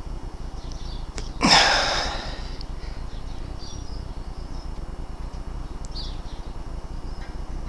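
A single shot from a BSA R10 PCP air rifle: a sharp report about a second and a half in that dies away within half a second, with a faint click just before it. Birds chirp faintly in the background.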